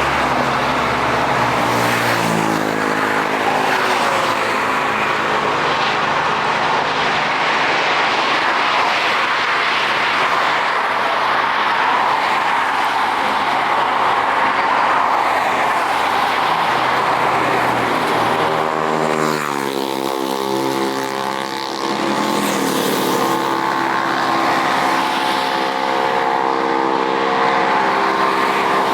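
Jet airliner taking off, a loud, steady engine roar with pitched engine tones that fall in pitch twice as the sound passes.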